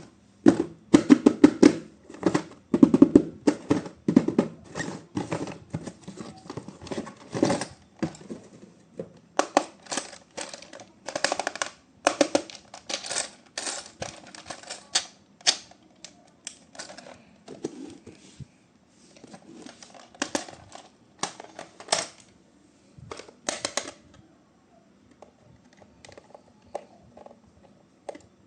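Toy packaging being handled and opened by hand: a run of many irregular sharp clicks and crackles. It is densest in the first eight seconds and thins out toward the end.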